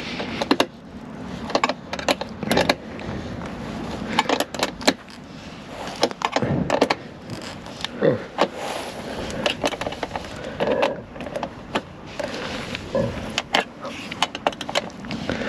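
Irregular metallic clicks, knocks and scrapes of a 10 mm spanner working a nut tight on the radio amplifier's mounting bolt in a cramped space under a car seat.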